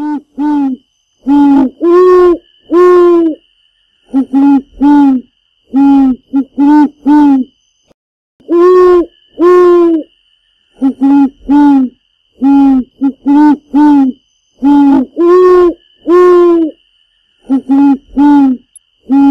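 Owl-style hooting: loud, pitched 'hoo' calls in short phrases of two to four, some clipped and some drawn out, repeating with brief pauses between phrases. A faint steady high tone runs beneath.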